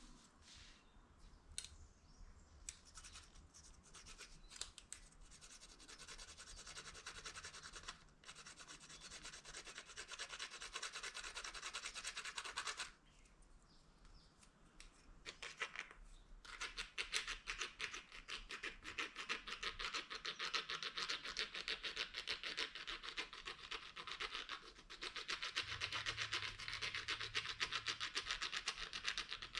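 Plastic scraping on plastic: a single prong of a broken plastic fork rubbed quickly back and forth along the edge of a plastic spoon to sharpen it, in fast, even strokes that stop briefly a few times.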